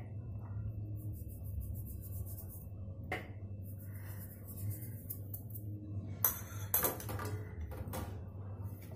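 Quiet kitchen handling sounds as flour is sprinkled over a rolled dough sheet on a wooden board: faint rustling over a steady low hum, a light tick about three seconds in, and a few sharp clicks and taps about six to eight seconds in.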